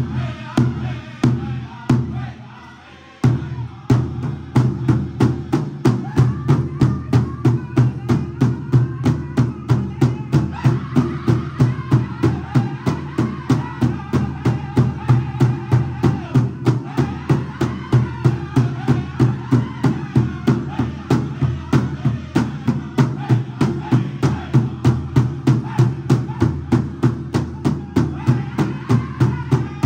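Powwow drum group singing while striking one large shared drum in unison. A few spaced strokes and a brief lull, then about three seconds in a steady beat of roughly two strokes a second with the group's voices over it.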